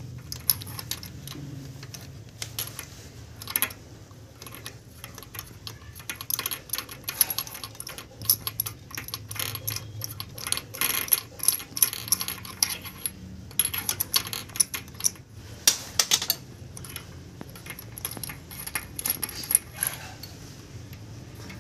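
Metal clinking and scraping of a tubular spark plug spanner being fitted into the plug well of a Bajaj NS 200 engine and turned to loosen the spark plug, with many small clicks in quick runs.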